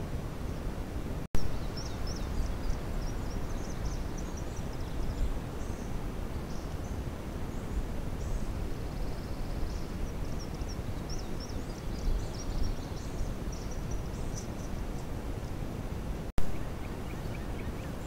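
Small birds chirping over and over in short, high notes above a steady low outdoor rumble. Twice the sound drops out for an instant and comes back with a sharp pop, the loudest thing heard.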